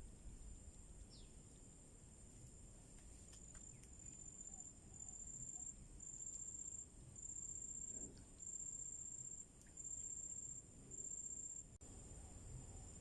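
An insect trilling in a high, even tone that swells into a run of about seven pulses, each close to a second long, from about four seconds in.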